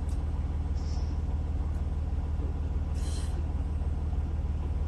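Steady low rumble of a truck's engine heard from inside the cab, with a brief faint hiss about three seconds in.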